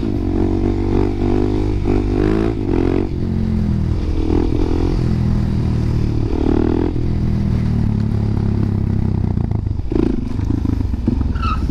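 Single-cylinder supermoto motorcycle engine running under way, its pitch rising and dropping several times as the throttle is worked through the gears.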